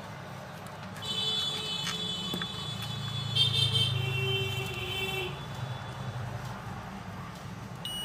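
Multimeter continuity buzzer beeping twice, each a high buzzy tone held a second or two, as the probes touch the phone's speaker negative line on one side of a coil. The beep shows the line is continuous up to that side; the other side of the coil gives no beep, the sign of an open coil in the speaker line.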